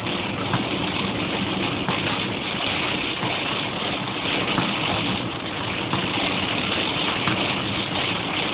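Steady rush of heavy rain and wet road noise heard from inside a car driving through a rainstorm.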